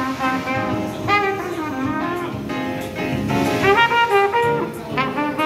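A trumpet playing a jazz melody in phrases of changing notes.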